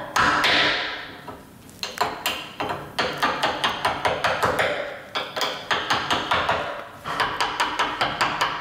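A hammer tapping the handle of a wood chisel in a run of even strikes, about three a second and quickening near the end, as the chisel cuts a recess in the wood. Background music plays underneath.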